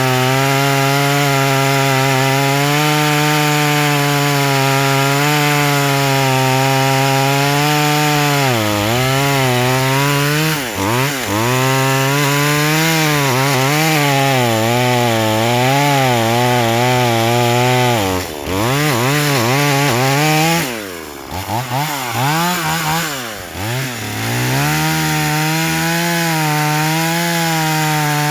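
Small 3800-model two-stroke chainsaw running at high revs while cutting through a log. Its engine note sags and wavers several times as the chain bogs down in the wood, most deeply about two-thirds of the way through, then comes back up to a steady high rev near the end.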